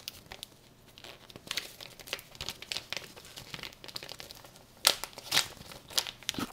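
Crinkling and rustling of a mail package's wrapping being handled and pulled at by hand to open it, in irregular crackles, with a few sharper, louder crackles about five seconds in.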